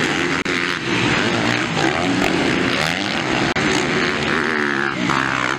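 Motocross dirt bike engines revving hard under racing load, pitch climbing and dropping again and again through gear changes as the bikes pass close by. The sound drops out briefly twice.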